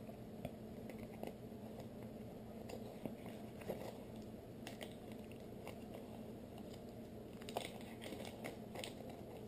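Faint crinkling and small clicks of a clear plastic bearing bag being handled and opened by hand, over a low steady hum.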